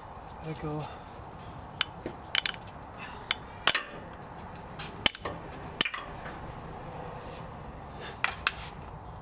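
Hand tools clinking and tapping against metal at a front differential during axle oil seal work: about ten short, sharp metallic clicks at irregular intervals, the loudest between about three and six seconds in.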